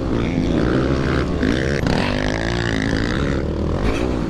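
Yamaha WR250R's single-cylinder four-stroke engine running hard under load, its pitch rising and falling with the throttle.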